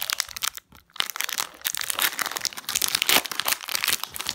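Foil wrapper of a Pokémon TCG booster pack crinkling and tearing as it is pulled open by hand: a dense run of sharp crackles with a short pause just before a second in.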